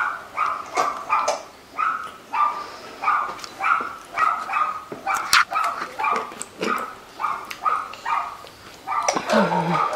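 A dog barking in a steady, rapid series of short barks, about two to three a second.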